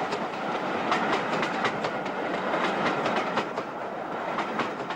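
A train running along the rails, its wheels clicking steadily over the rail joints and fading out at the end.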